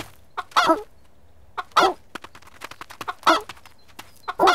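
Four short, cartoonish animal-like calls, a little over a second apart, with faint clicks between them.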